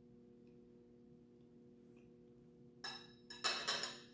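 Metal fork scraping and clinking on a glass plate while cutting off a bite of cinnamon roll: one short scrape about three seconds in, then a quick run of ringing clinks. A faint steady hum runs underneath.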